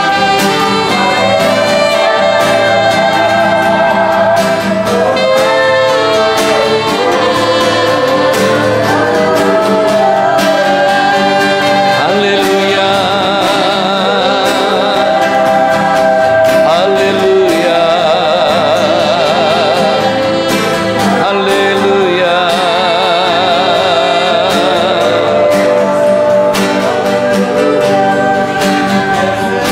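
Slow church worship music from a live band, with a singer's voice carrying a long, wavering melody without words over sustained chords.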